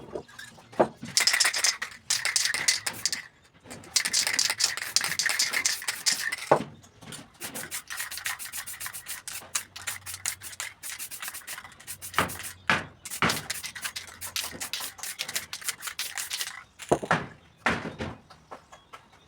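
Quick repeated rubbing strokes against a surface, in bursts of a couple of seconds with short pauses between them, and a few sharp knocks near the end.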